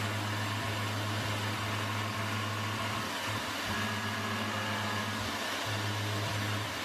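CNC milling machine spindle running with a half-inch end mill milling down a hardened rivet head on a differential ring gear: a steady low hum over a hiss, which dips briefly a couple of times.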